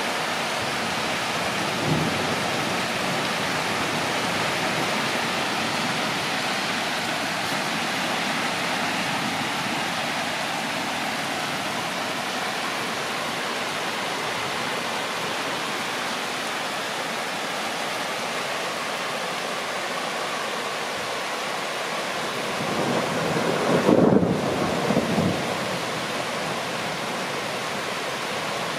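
Steady rain falling, with a brief low rumble about two seconds in and a longer roll of thunder swelling and fading a few seconds before the end.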